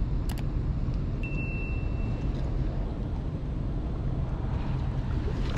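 Steady wind buffeting the microphone, with a quick double click near the start and a thin, high steady tone lasting about a second.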